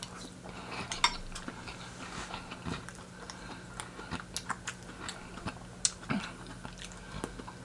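Scattered light clicks and clinks of utensils and dishes, with faint chewing, over a low steady hum.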